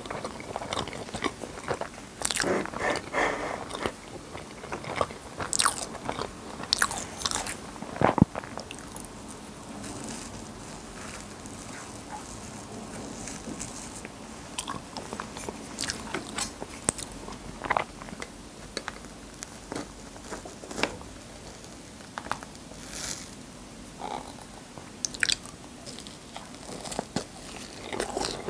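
Close-miked eating sounds: chewing, with irregular wet mouth clicks and smacks.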